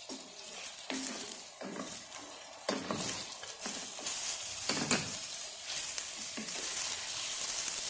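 Raw chicken wings sizzling in hot oil with onion and garlic in a stainless steel pot, stirred with a wooden spoon that knocks and scrapes against the pot a few times. The sizzle grows louder in the second half.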